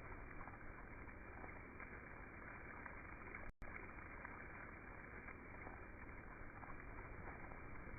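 Faint, steady, muffled noise with no distinct event, broken by a brief dropout about three and a half seconds in.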